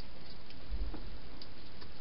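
A wild hedgehog feeding at a dish: a few faint clicks and a soft low bump about a second in, over a steady hiss.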